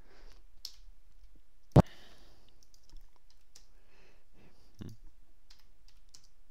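Computer mouse and keyboard clicks, a scattering of light clicks with one much louder, sharp click about two seconds in.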